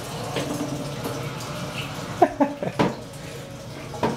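Water running steadily into a toilet cistern through the hand-wash spout on its lid as the tank refills after a flush. A few short, sharp sounds come about two to three seconds in.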